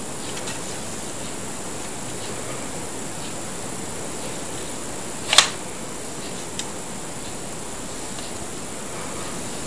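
Lego brick pistol being handled: one sharp plastic click about halfway through and a couple of faint ticks, over a steady hiss.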